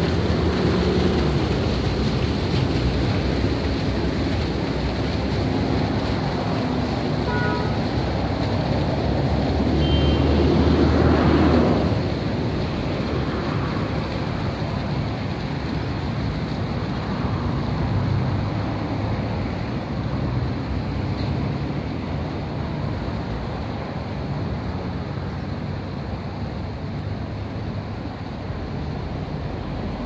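Steady rushing and splashing of fountain water jets falling into a pool, swelling louder around ten to twelve seconds in and easing a little toward the end.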